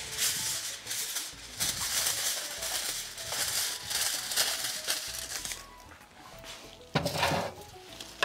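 Crinkling and rustling of a sheet of kitchen wrap for a papillote being handled in bursts, over soft background music, with one short louder rustle about seven seconds in.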